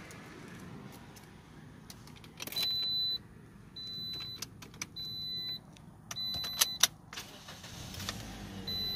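Toyota Corolla's dashboard warning chime beeping over and over, about once a second, with the clicks and jingle of the key at the ignition. A low rumble rises near the end as the engine starts.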